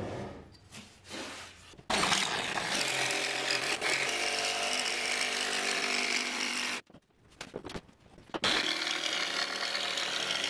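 Cordless DeWalt jigsaw cutting a circle out of particleboard. It starts abruptly about two seconds in, stops for a moment around seven seconds, then cuts again.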